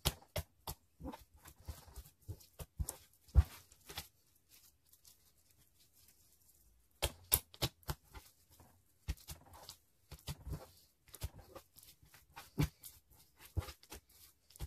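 Pink glitter slime being kneaded and squeezed by hand, giving a run of quick sticky clicks and crackling pops, with a quieter pause about four to seven seconds in.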